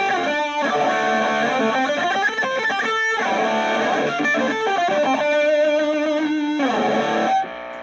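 Electric guitar, a gold Les Paul, played through an Orange Micro Terror hybrid valve-preamp amp with distortion: a run of notes and held chords that stops and rings out near the end.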